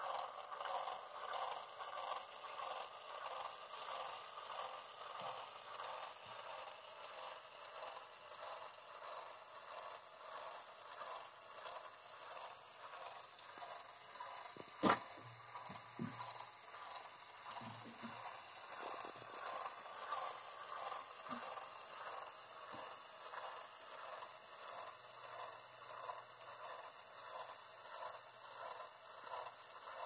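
Small DC motor whirring as it spins the plastic drum of a homemade cardboard mini concrete mixer, with a steady rhythmic rattle. One sharp click about halfway through.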